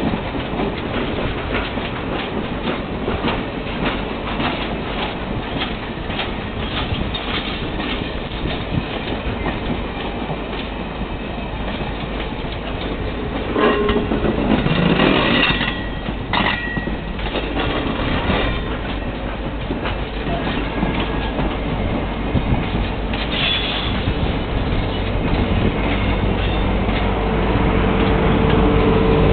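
Passenger train cars rolling past close by, their wheels clicking over the rail joints over a steady rumble, with a brief high squeal about halfway through. Near the end a diesel locomotive's engine grows louder as it approaches.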